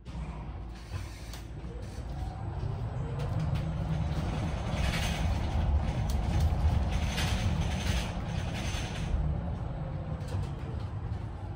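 Cabin noise inside a Mercedes-Benz eCitaro articulated electric bus on the move: a steady low rumble from the road, with creaks and rattles from the body and fittings. A faint electric motor whine rises in pitch a few seconds in and falls away later.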